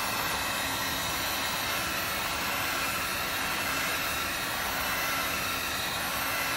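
Electric heat gun running steadily: an even rush of blown air with a faint motor hum, aimed at a 2-inch PVC pipe ring to soften it.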